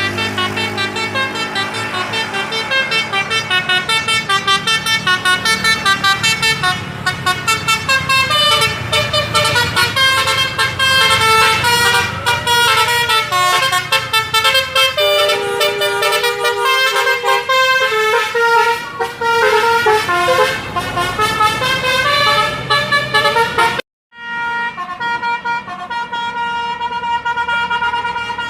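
Bus telolet horn, a multi-tone horn playing a quick melody of tooting notes over a low hum. It cuts off briefly about 24 seconds in, then starts again.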